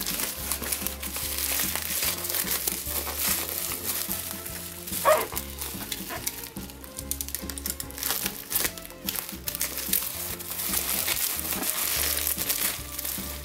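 Black bubble-wrap plastic mailer crinkling and rustling as it is slit with a utility knife and pulled apart by hand, with irregular crackles, over background music with a steady bass line.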